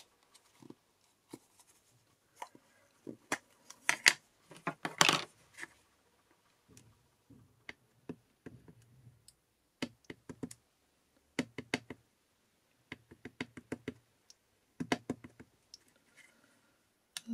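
Wooden rubber stamp dabbed onto a black Memento ink pad in short runs of quick light taps, inking it before stamping. A few louder clicks of the plastic ink pad case come around four to five seconds in.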